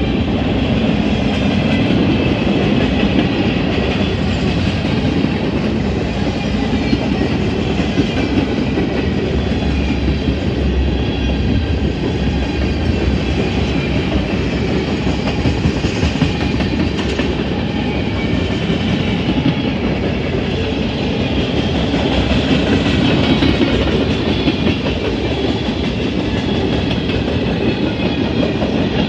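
Canadian Pacific freight train's cars rolling steadily past close by, wheels clattering over the rail joints.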